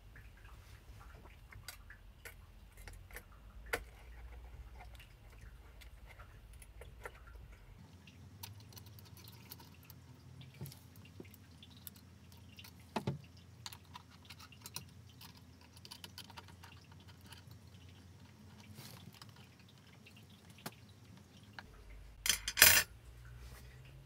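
Faint scattered clicks and light taps of hands working at a CPU heatsink on a motherboard, with one loud, short rush of noise near the end.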